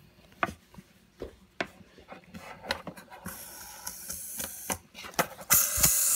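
Scattered light knocks and clicks from a plastic spinning top as it slows and wobbles on a hard surface. Then comes a steady high whirring hiss from a fidget spinner's metal bearing, which gets much louder about five and a half seconds in.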